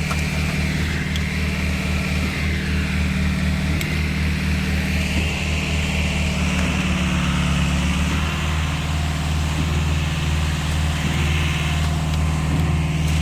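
Concrete pump's engine running steadily while concrete is being pumped, with a higher whine over it that wavers up and down.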